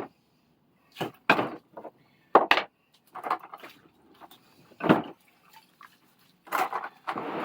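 Parts of a Record No. 0 vise being taken apart and handled: a series of separate sharp knocks and plops, with a short rushing noise near the end.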